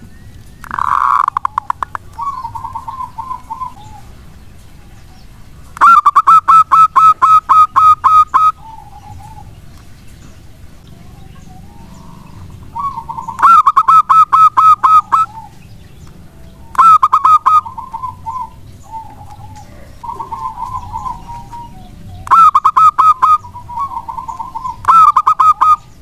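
Zebra dove singing: repeated loud bouts of rapid staccato cooing notes, about ten a second, the longest lasting a couple of seconds, with softer trilled phrases in between.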